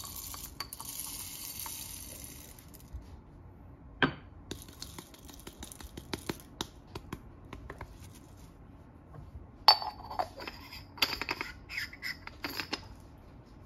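Coffee-brewing utensils being handled: a short hiss, then scattered light taps and clicks, a sharp knock about four seconds in, and a run of ringing glassy clinks from about ten seconds in.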